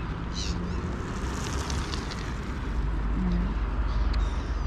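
Steady low rumble of road traffic, with a short high bird call about half a second in.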